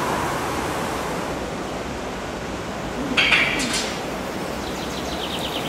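Steady ambient rush of city background noise, with a short burst of bright clinks about three seconds in and a quick run of faint ticks near the end.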